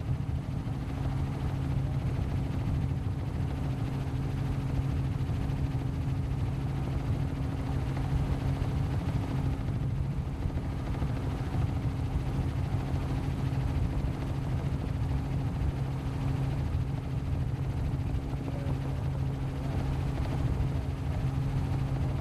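Helicopter in flight: a steady, even drone with a low hum running through it.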